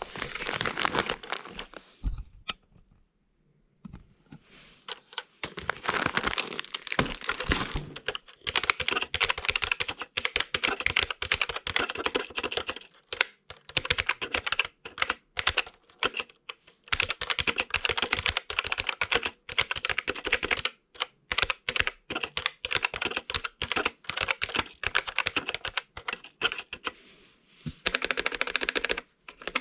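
Typing on a vintage TeleVideo SpaceSaver keyboard: fast runs of sharp key clicks broken by short pauses, a brief one about two seconds in and a few shorter ones later.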